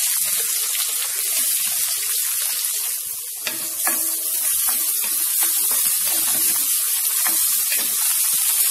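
Freshly added chopped red onion sizzling in hot oil in a stainless steel kadai, steady throughout, while a wooden spatula stirs it with occasional scrapes and knocks against the pan.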